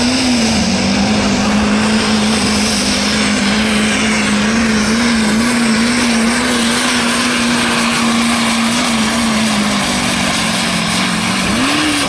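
Turbo diesel pickup truck at full throttle pulling a weight sled, its engine held at a loud, steady high pitch that wavers slightly. Near the end the pitch rises briefly, then the sound cuts off suddenly.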